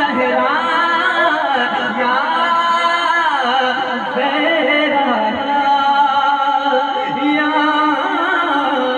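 A man singing a naat through a microphone, holding long ornamented notes that glide up and down.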